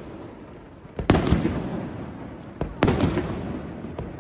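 Aerial firework shells bursting overhead: sharp bangs, a pair about a second in and another pair near three seconds in, each followed by a rolling echo.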